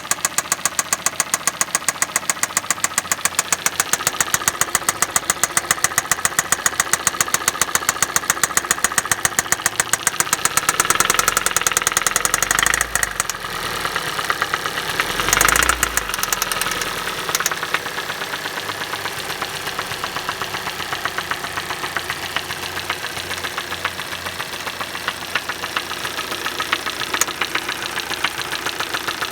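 Hyundai i40's 2.0-litre petrol engine running with a fast, even knock, a strange knock that appeared at 60,000 km. The engine is revved briefly twice around the middle, and the knocking carries on through it.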